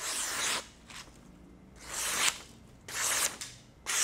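Freshly sharpened kitchen knife slicing down through a sheet of paper held in the air, four slicing strokes about a second apart, each a short papery hiss. The clean cuts show a razor-sharp edge.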